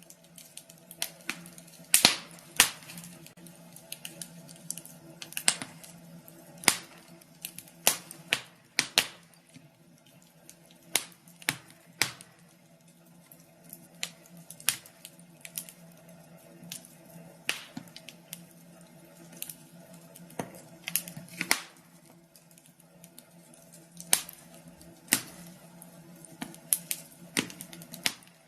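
Wood fire crackling in a fireplace: irregular sharp pops and snaps, several a second and varying in loudness, over a faint steady low hum.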